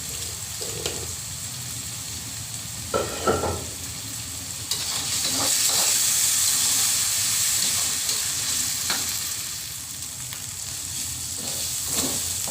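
Shallots and chilies sizzling as they fry in hot oil, with a brief clatter of a spatula against the pan about three seconds in. The sizzle grows louder about five seconds in.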